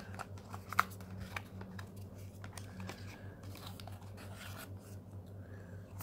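Hands handling a small cardboard product box and crinkly plastic packaging: scattered rustles, crinkles and light taps, with one sharp click a little under a second in, over a steady low hum.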